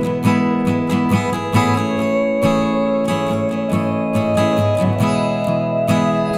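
Background music led by strummed acoustic guitar with a steady rhythm.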